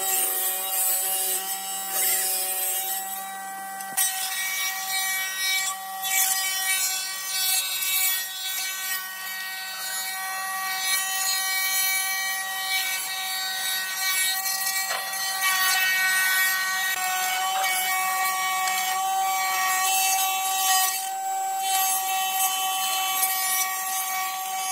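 A power tool runs with a steady whine while working wood, over a continuous rasping cutting noise.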